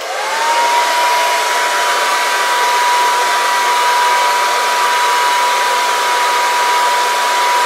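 Handheld hair dryer switched on, its motor whine rising to a steady pitch within the first half second, then running steadily with a loud hiss of blowing air as it heats a rubber cable wound round a drill bit.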